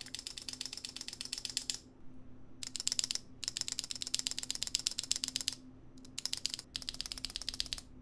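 Mechanical keyboard Enter key on its 2U stabilizer being pressed over and over in quick succession: fast runs of plasticky clacks and rattle in about five bursts with short pauses. The stabilizer is not yet lubed.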